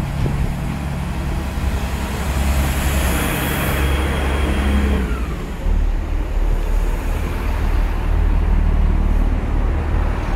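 Class 166 Turbo diesel multiple unit pulling away and passing close by, its underfloor diesel engines running under power. A high whine fades out about five seconds in, and the engine note drops lower and gets louder as the carriages go past.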